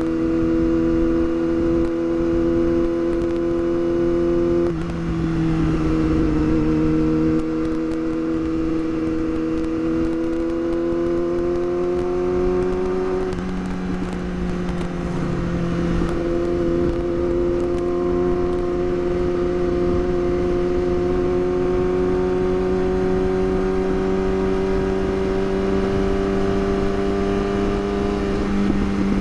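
Yamaha R6 inline-four engine pulling steadily on the road, its pitch climbing slowly in each gear, with upshifts about five seconds in, about thirteen seconds in and near the end. Wind noise underneath.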